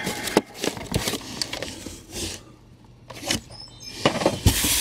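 Cardboard Funko Pop! figure boxes knocking and scraping against a shipping carton's cardboard dividers as they are handled and pulled out: a string of short knocks and rubbing, quieter a little past the middle, then a loud rustle near the end.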